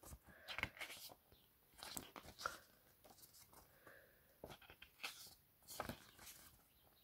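Faint, scattered rustles and soft clicks of glossy booklet pages being handled and turned.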